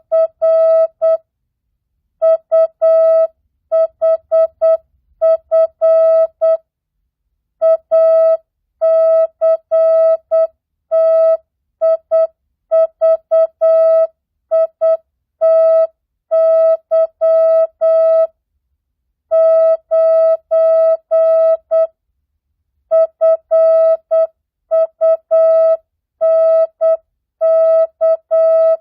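Morse code (CW) practice tone keyed at 8 words per minute, non-Farnsworth, a single steady mid-pitched beep sending mixed words, numbers and punctuation in dots and dashes, with short pauses of about a second between words.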